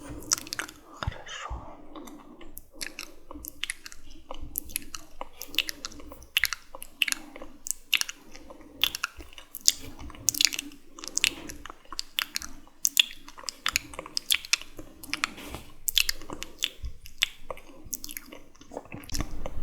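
Close-up wet, sticky mouth sounds: an irregular stream of sharp clicks and smacks, several a second.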